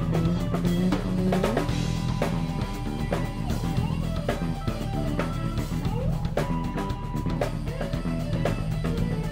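Background music played by a band with a drum kit keeping a steady beat under sliding melodic notes.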